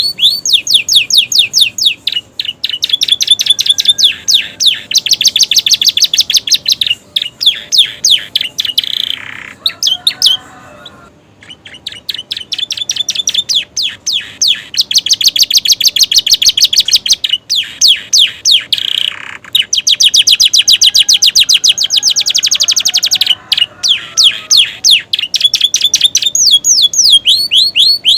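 Domestic canary singing loudly in long runs of rapid repeated chirps and trills, its song filled with learned prenjak and ciblek (prinia) phrases. It breaks off briefly about ten seconds in, then resumes.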